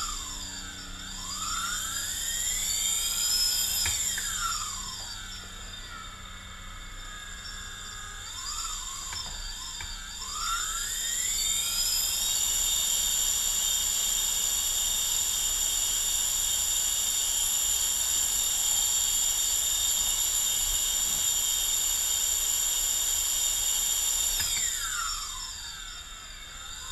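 The electric motors of a DJI Phantom quadcopter whine as they are throttled on a test run after salt-water exposure. The pitch rises and falls several times, then holds steady and high for about twelve seconds, then winds down a couple of seconds before the end.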